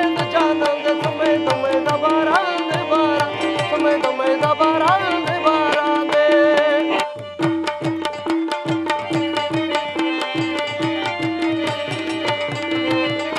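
Pashto folk instrumental music: a tabla plays a fast rhythm under a rabab and harmonium melody. The music breaks off for an instant about seven seconds in, then the drumming carries on.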